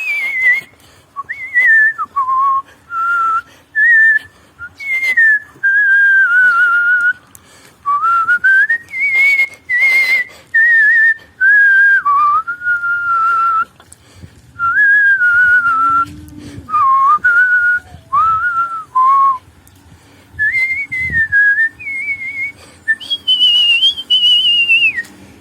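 A person whistling a melody in artistic whistling style: clear, pure notes that slide and step between pitches, in short phrases with brief pauses between them.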